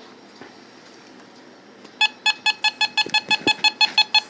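Handheld microwave (RF) meter beeping in a rapid stream of short, high, evenly spaced beeps that start about halfway in, its audio alert for a strong signal reading.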